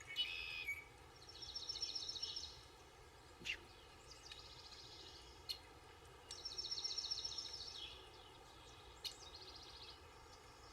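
A small songbird singing short, rapid, high trilled phrases, about four of them a few seconds apart, against faint outdoor background noise. A few brief sharp ticks fall between the phrases.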